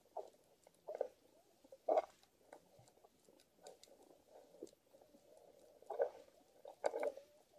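Underwater ambience: irregular crackling clicks and short low pops, the loudest about two seconds in and again near the end.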